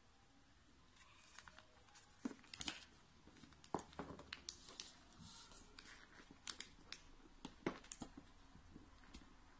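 Square of origami paper being folded and creased by hand: faint rustling with scattered short, crisp crackles as the folds are pressed flat against a table.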